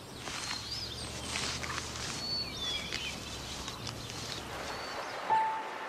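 Bald eagles at the nest giving several high, thin chirping calls that waver in pitch, over light rustling of nest sticks. About five seconds in, a steady held note of background music begins.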